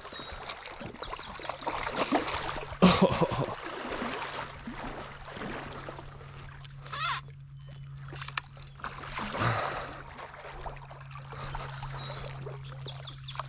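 A hooked steelhead thrashing and splashing at the surface of a creek as it is played in close on a fly rod. There are several separate splashes, the loudest about three seconds in.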